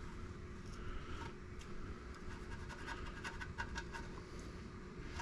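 Razor blade scraping old gasket material off the aluminium crankcase flange of a small engine. A faint scratching turns into a run of short, quick scrapes about halfway through.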